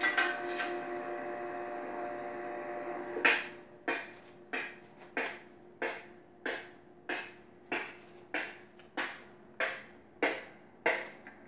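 Evenly spaced metal-on-metal strikes, about one and a half a second starting about three seconds in, each ringing briefly: hammer blows to drive a seized piston out of a 1959 Pontiac 389 cast-iron engine block. Before the strikes, a steady hum.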